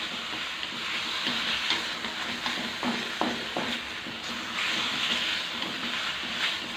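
Sliced beef sizzling as it is stir-fried in an aluminium wok, turned over with chopsticks, with a few light knocks against the pan about three seconds in. The beef is being seared until it firms up and loses its red colour.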